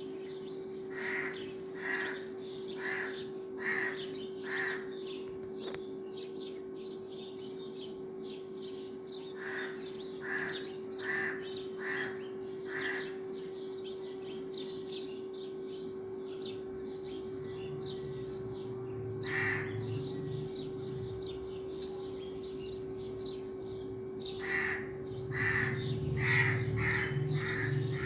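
A crow cawing in runs of about five calls, roughly one call a second, with pauses of several seconds between runs. A steady low hum runs underneath.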